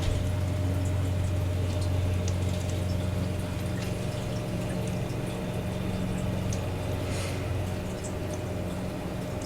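Steady low hum under a constant background hiss, with a few faint ticks.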